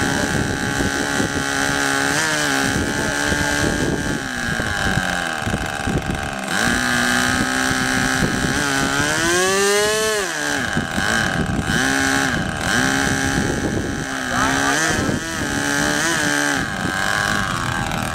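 R/C model boat's small two-stroke engine running out of the water at a steady idle, its throttle blipped briefly a few times and revved up hard once about halfway through before dropping back to idle.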